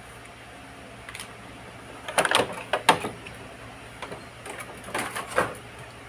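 Plastic toy parts being handled, with three bright clusters of clicking and clattering about a second in, around two to three seconds in (the loudest), and near the end, over a steady low hiss.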